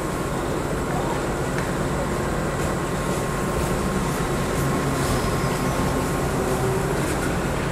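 Steady rumble and hum of a diesel-hauled passenger train at the platform, with a faint steady tone running through it.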